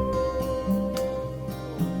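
Guitar music played back from a cassette on a Nakamichi LX-5 deck, taken straight from its line output: a long held note over shifting bass notes, which slides down near the end.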